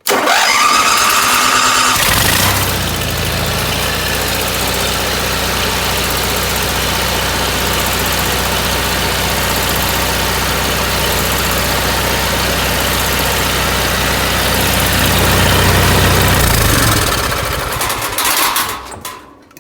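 Onan generator, converted to run on propane, cranking over for about two seconds, then catching and running steadily. Its sound falls away near the end.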